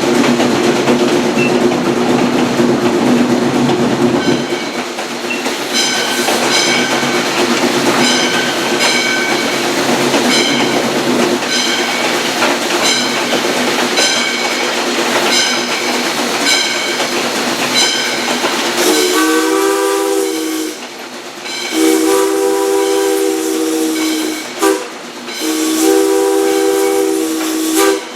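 Steam locomotive bell ringing about once a second over the train's running noise. Then the steam whistle sounds two long blasts, a short one and a long one, the standard grade-crossing signal.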